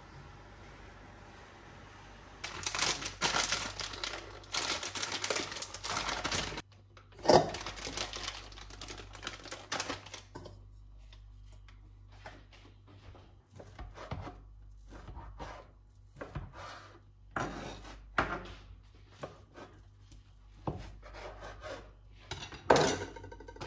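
Kitchen food-prep noises: rustling and clatter as food is handled in a stainless steel bowl, then a knife cutting on a plastic cutting board in scattered sharp taps, with a couple of louder knocks.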